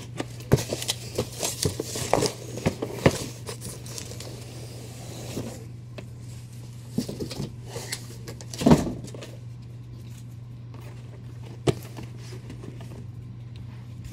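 Cardboard shipping carton being unpacked by hand: cardboard rustling, scraping and knocking as boxed figures are lifted out and set down, busiest in the first few seconds, with the loudest thump a little past the middle. A steady low hum runs underneath.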